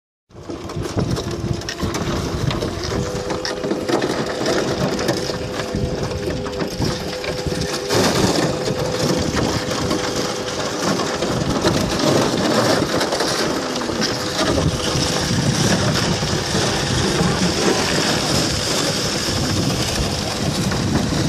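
Broken thin lake ice crunching and scraping continuously along a small boat's hull as it is driven through, with an outboard motor running underneath.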